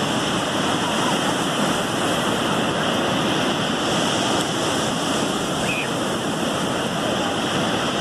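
Ocean surf breaking and washing up the shore: a steady, unbroken rush.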